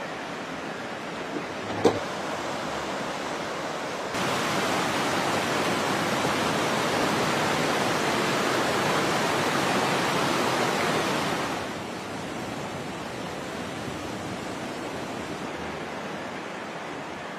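Fast-flowing floodwater rushing, a steady noisy wash of water that grows louder for several seconds in the middle. A single sharp knock sounds about two seconds in.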